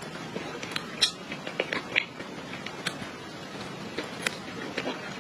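Close-up eating sounds: irregular wet clicks and crackles of chewing and mouth noises, with a few sharper clicks scattered through.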